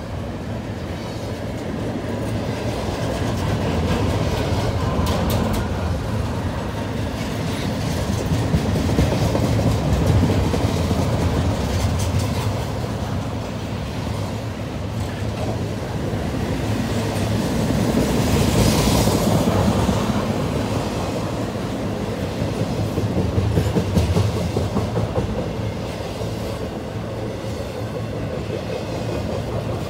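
Double-stack intermodal freight train rolling past: the steady rumble and rattle of loaded well cars on steel wheels, with scattered clicks. The sound swells and eases, with a brief high hiss a little past the middle.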